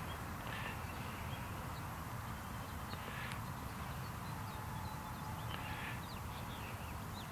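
Outdoor ambience: a steady low rumble with faint high bird chirps, and three short soft rushing sounds, about half a second in, a little after three seconds and near six seconds.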